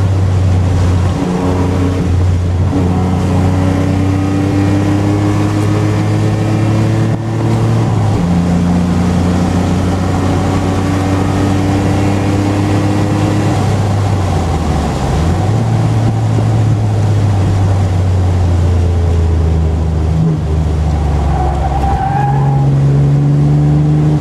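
Nissan 300ZX (Z31) V6 engine under hard driving, heard from inside the car: the engine note climbs and then drops back several times as the revs rise and fall through the course, over steady wind and road noise.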